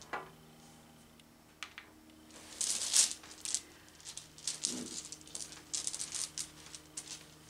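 Handful of Sagrada's small plastic dice rattled and rolled onto a cloth-covered table: a short clatter about two and a half seconds in, then a longer run of clicks and rattles until near the end.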